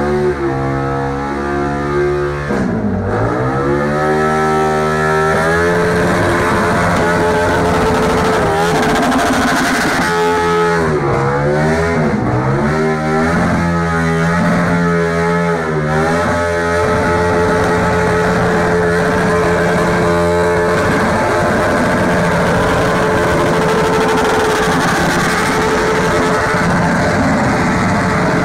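A vehicle engine revving hard. Its pitch dips and climbs in the first few seconds, then rises and falls about five times in quick succession, then holds a steady high rev through the second half.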